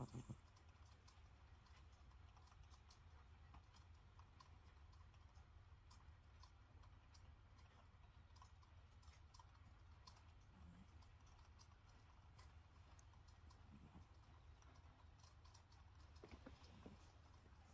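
Faint snoring of a heavily overweight Scottish Fold cat: quiet breaths with small scattered clicking sounds over a low steady hum. The owner puts the snoring down to the cat's heavy weight gain.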